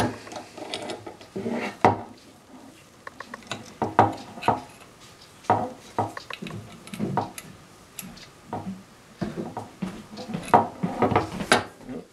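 Metal parts of a Stanley No. 71 router plane clicking and clinking together as the blade is fitted through its collar and the plane is handled. The knocks are irregular, a dozen or so, with quieter rubbing between them.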